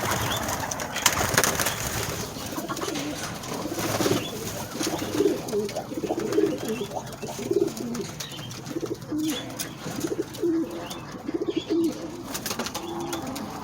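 Several domestic pigeons cooing, short low coos repeating and overlapping, with scattered clicks and rustling.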